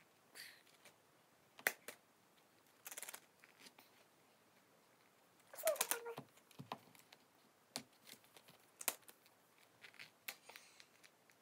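Scattered small clicks, taps and crinkles of hands handling a plastic toy capsule and wrappers, with a louder crackling clatter about halfway through.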